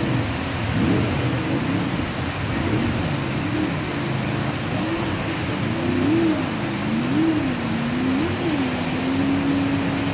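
Racing jet boat's engine running hard through whitewater rapids. Its pitch repeatedly rises and falls, about once a second in the second half, over the steady rush of the rapids.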